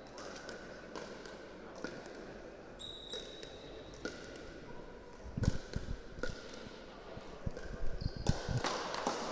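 Pickleball paddles tapping the plastic ball back and forth in a soft dinking rally, a sharp click about once a second, with sneakers squeaking on the sports-hall floor. From about halfway through, a cluster of dull low thumps is the loudest sound.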